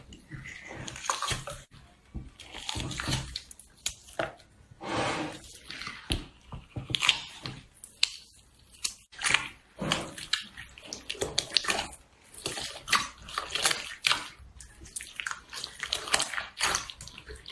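Slime being squeezed and pressed by hand: irregular wet squishing with crackling clicks and pops.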